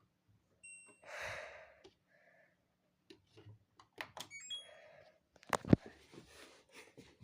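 An LG washing machine's control panel beeping: one short beep, then a quick run of beeps a few seconds later. Around these come a rush of noise, clicks and knocks, the loudest a sharp thump about five and a half seconds in.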